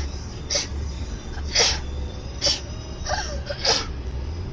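A woman sneezing in a rapid run of five or six sneezes, about one a second, some sharper and some softer, over a low steady background hum.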